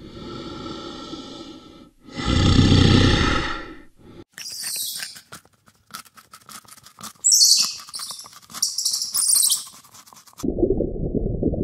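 Polar bear groaning twice, the second groan louder. About four seconds in it gives way to high, falling chirping calls in bursts with many small clicks, and a steady low rumble comes in during the last second.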